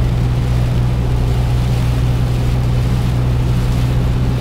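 Vehicle cabin noise while driving in rain: a steady low engine hum under an even hiss of tyres on the wet road.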